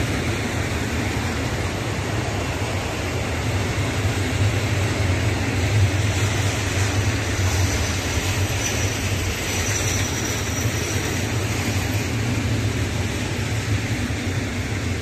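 Freight train of tank wagons rolling past close by at steady speed: a steady rumble of steel wheels on the rails, with a faint high whine for a couple of seconds near the middle.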